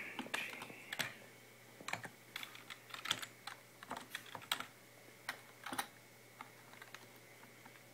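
Computer keyboard keys typed in an irregular run of clicks for about six seconds, then stopping: a power-on password being entered at boot.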